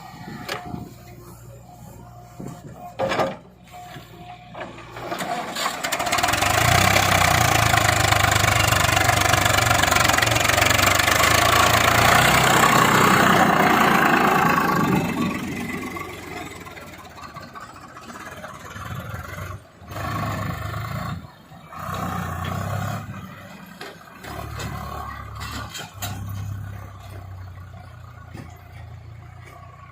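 Heavy diesel engine running, building up to a loud, hard-working run for about ten seconds in the middle, with a strong rushing noise, then dropping back to a lower run with a few short surges.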